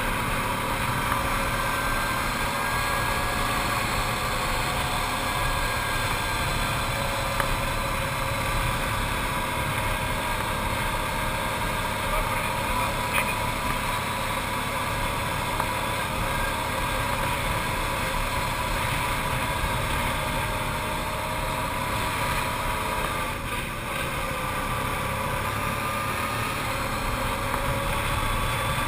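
Arctic Cat TRV 1000 ATV's V-twin engine running steadily while under way, its note drifting slightly up and down. About three-quarters of the way through the engine note briefly dips, as with a lift of the throttle.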